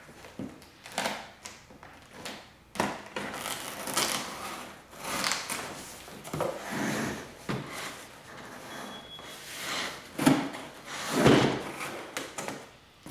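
Irregular rubbing, scraping and knocks of the box, packaging and airsoft rifle parts being handled and unpacked, with the loudest knocks about ten and eleven seconds in.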